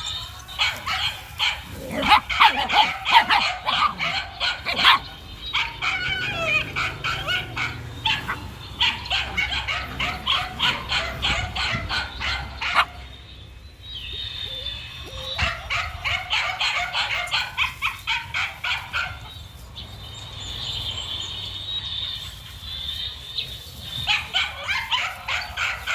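Dog yapping rapidly and high-pitched, several yaps a second in long runs with short pauses between them.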